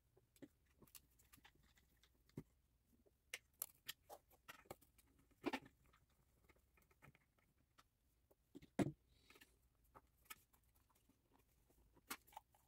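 Faint, scattered clicks, taps and small knocks of a screwdriver and parts being handled in a metal power-supply case, with one louder knock near nine seconds in.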